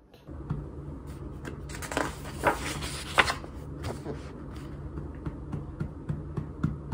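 Rustling and soft taps of a hand moving over the paper pages of a large book, over a low steady hum, with the loudest rustles about two to three seconds in.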